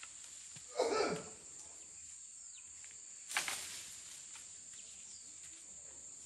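Steady high-pitched chirring of insects such as crickets or cicadas, with two short louder noises, one about a second in and a sharper one at about three and a half seconds.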